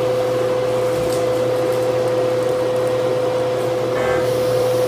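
Steady machine drone with one clear held tone over a low hum, from the powered-up Biesse Klever CNC router and its shop equipment, the machine standing still before homing.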